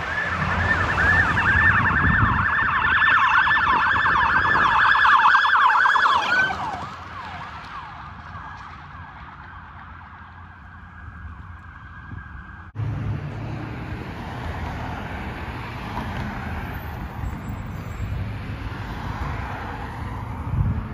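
Emergency vehicle siren in yelp mode, a loud, fast rising-and-falling wail about four times a second, which cuts off after about six seconds. A fainter, steadier siren tone follows. From about 13 s there is road traffic noise from a vehicle passing.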